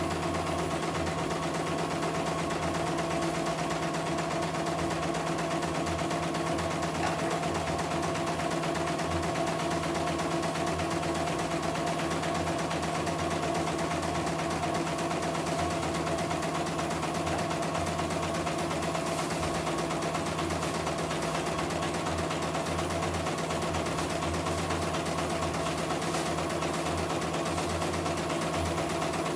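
CNY E900 computerised embroidery machine running steadily, stitching out a test design at an even speed, smoothly and without trouble.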